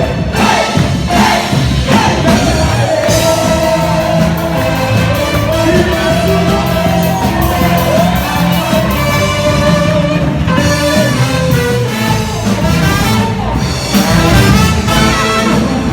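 Loud music with a voice singing a wavering melody over a steady beat.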